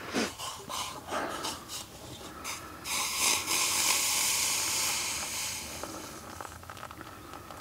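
Water poured from a metal camping mug into a pour-over coffee filter on a cup: a steady splashing hiss starting about three seconds in and slowly tapering off, after a few light handling clicks and knocks.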